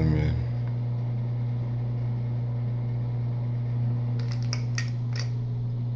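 A steady low hum, with a few light clicks and taps between about four and five seconds in as small items are handled.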